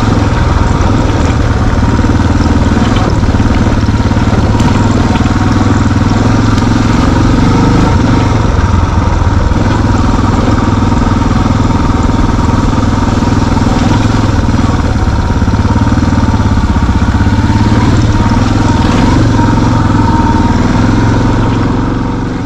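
Engine of an off-road vehicle running steadily under way on a dirt trail, fading out near the end.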